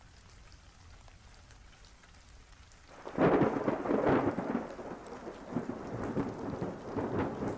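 Thunderstorm: faint steady rain, then thunder breaks in about three seconds in and rumbles on unevenly over the rain.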